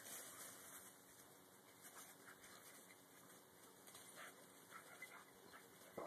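Near silence: faint outdoor background hiss with a few soft scattered rustles.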